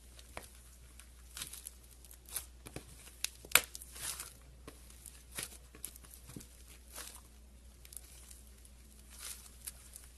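Slime being squeezed and stretched by hand, giving irregular crackling pops and squelches, with one sharper pop about three and a half seconds in.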